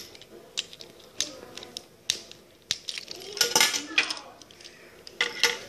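Toy train and its small parts being handled and worked with a screwdriver over a glass tabletop: scattered light clicks and taps, busiest about three and a half seconds in.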